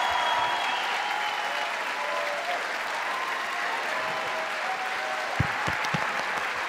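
Audience applauding steadily, with a few short low thumps near the end.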